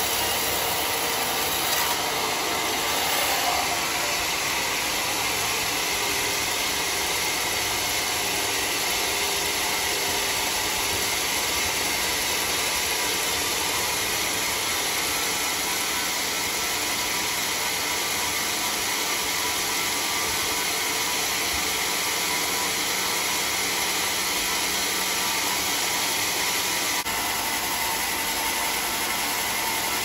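Sawmill band saw running steadily with a continuous whooshing noise, its blade cutting lengthwise through a large mahogany log.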